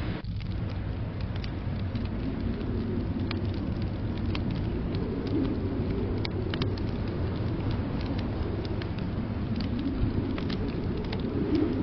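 Wood fire crackling in a fireplace, scattered sharp pops over a steady low rumble of blizzard wind.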